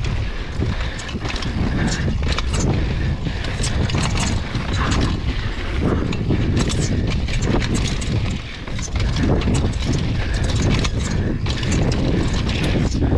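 Mountain bike descending a dry, rocky dirt trail: tyres rolling over dirt and loose stones, and the bike rattling with frequent irregular clicks and knocks, over a steady low wind rumble on the microphone.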